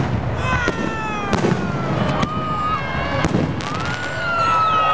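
Fireworks going off in a dense volley: repeated bangs and crackling pops, with several whistling rockets sliding down in pitch. A long, steady whistle starts about four seconds in.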